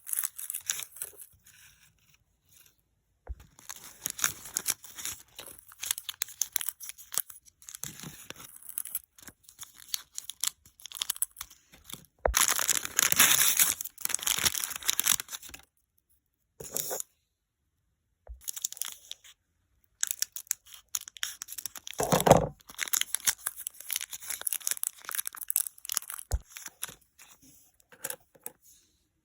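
Toy packaging being torn and crinkled open by hand, in irregular bursts of tearing and rustling with short pauses between. The longest, loudest bout of tearing comes about halfway through.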